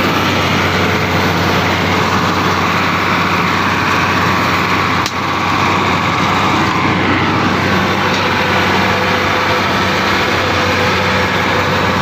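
New Holland combine harvester running steadily, its engine and threshing machinery heard up close from on top of the machine beside a grain tank full of rice.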